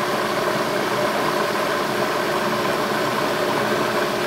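Food processor motor running steadily, puréeing a thick cooked-vegetable mixture into a creamy sauce.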